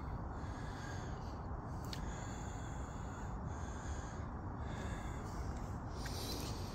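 Steady, even outdoor background noise, mostly a low rumble, with no distinct events.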